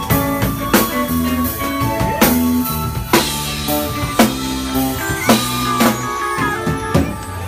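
Live band playing loud through the PA: a drum kit keeps a steady beat of sharp hits under held bass and keyboard notes, with electric guitar.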